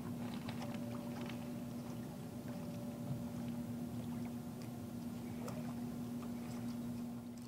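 Small waves lapping and trickling among shoreline rocks, many little splashes and ticks over a steady low wash, with a constant low hum underneath.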